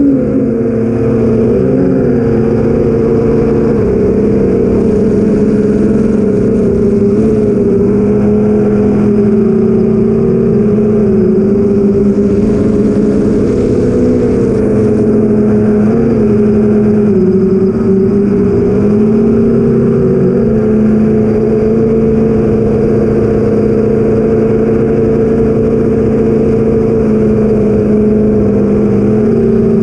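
Eight-inch FPV quadcopter's brushless motors (BrotherHobby Avenger 2812 1115kv) spinning 8045 three-blade props in steady cruising flight, heard from the camera on the drone: a loud continuous buzzing whine whose pitch wavers slightly up and down as the throttle changes.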